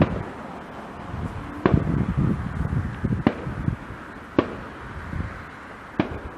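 Fireworks going off, a sharp bang every second or two, five in all, some followed by a low rumbling echo.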